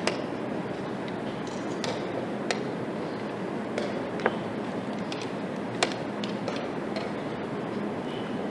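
Wooden chess pieces being set down on a board and a chess clock's buttons being pressed in quick turns in a blitz game: a dozen or so sharp, irregular clicks and clacks over a steady background hiss.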